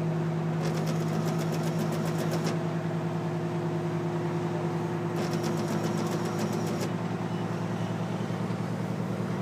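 Aerial ladder truck's engine and hydraulic system running steadily as a low hum, with two stretches of rapid fine ticking, one early and one past the middle, while the ladder is operated.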